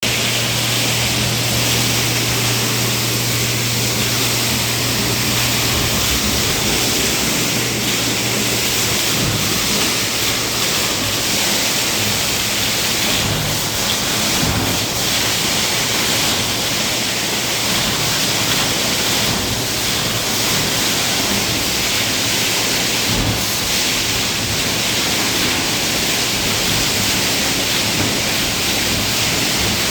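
Large vacuum cleaner running with a loud, steady hiss of rushing air, with a low motor hum under it for the first few seconds.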